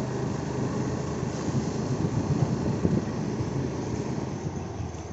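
A vehicle engine running steadily while moving along, with wind noise on the microphone.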